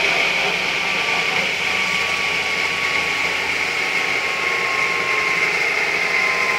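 Homemade belt-driven firewood circular saw with a 600 mm blade and a 4 kW motor, running free with no log in the cut: a steady hum under a high whine whose pitch sinks slowly.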